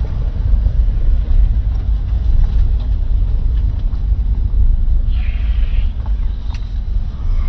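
Steady low rumble of a car's engine and tyres heard inside the cabin while driving slowly along a rough, narrow road. A brief hiss comes about five seconds in.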